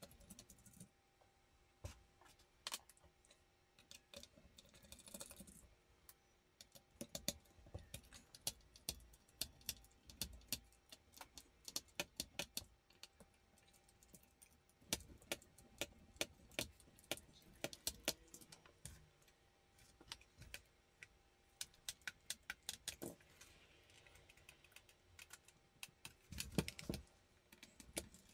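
Small screwdriver undoing the screws on the back of a graphics card: runs of light, quick clicks from the tool and the tiny screws, with a couple of soft knocks near the end as the card is handled on the mat.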